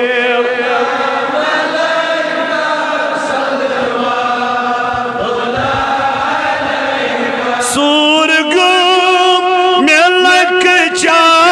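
Unaccompanied chanting of Darood Shareef, Islamic salutations on the Prophet, in long drawn-out held notes. The first part sounds like several voices together. About eight seconds in, a single stronger male voice with a wavering vibrato takes over, louder.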